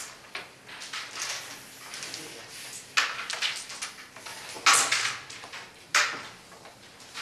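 Carrom striker and coins knocking on a wooden carrom board: three sharp clacks a second or two apart, each with a short ring.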